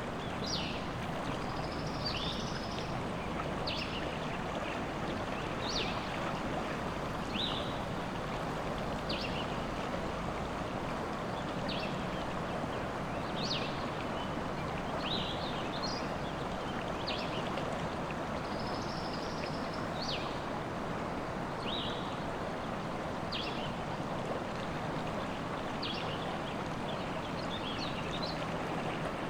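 River water rushing steadily, with birds in the forest giving short, high chirps every second or two over it.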